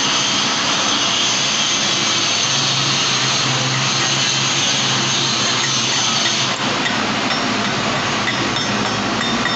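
MIG welding arc crackling steadily as a fillet weld is run along a steel T joint, with a momentary dip about two-thirds of the way through.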